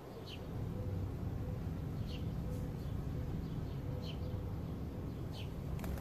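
A bird giving a short, falling chirp about every two seconds, over a louder low rumble. A sharp click near the end.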